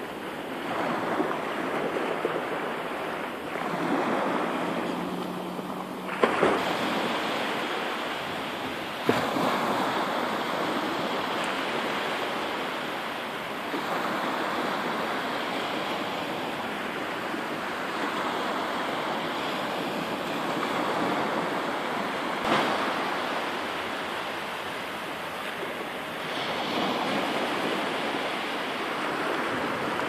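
Small waves breaking and washing up a sandy beach, the surf swelling and fading every few seconds. Three brief knocks stand out.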